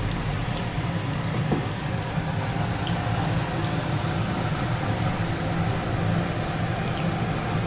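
Batter-coated vegetable pakoras deep-frying in hot oil in a large kadhai: a steady sizzle, over a steady low hum.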